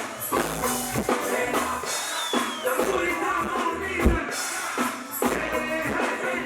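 Music with a drum beat and low bass-drum thumps.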